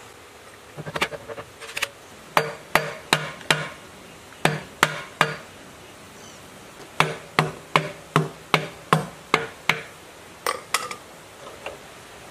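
A hammer strikes metal engine parts in quick runs of about three blows a second, with short pauses between runs. Each blow is sharp and rings briefly.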